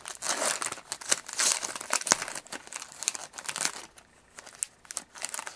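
Foil wrapper of a trading card pack being torn open and crinkled by hand: a dense run of crackling that thins to a few scattered crinkles in the last second and a half.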